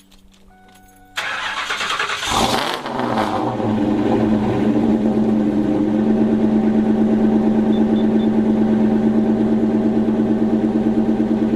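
A Ford Mustang V8 starting about a second in: it catches with a quick rev flare, then settles into a steady, evenly pulsing idle.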